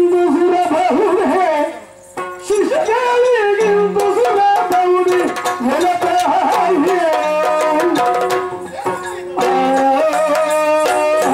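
Yakshagana song: the bhagavata singing long, bending melodic lines over chende and maddale drum strokes, with a brief break about two seconds in.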